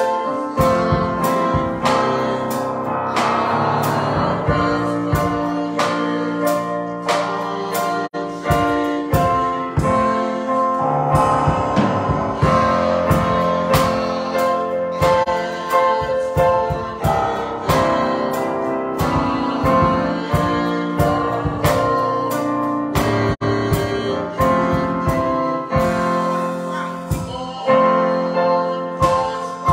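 Gospel music: a woman singing a solo over piano accompaniment.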